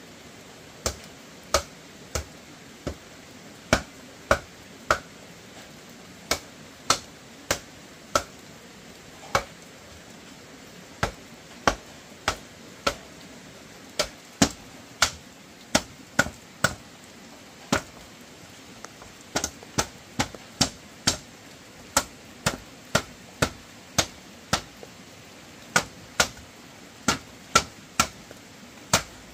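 Repeated sharp blows of a hand tool, about two a second in runs broken by short pauses, each with a brief ring.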